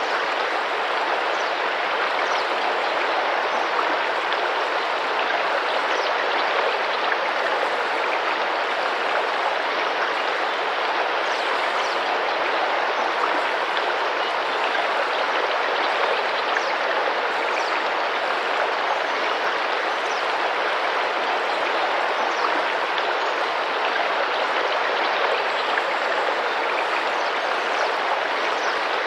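A tropical rainforest river rushing and splashing steadily, with faint, short, high bird notes falling in pitch every few seconds.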